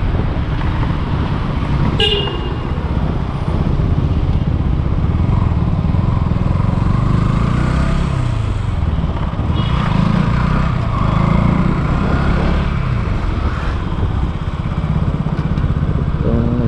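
KTM 200 Duke's single-cylinder engine running steadily under way, recorded on the bike itself; its note falls and climbs again a little past the middle as the throttle is eased and reopened. A short horn toot about two seconds in.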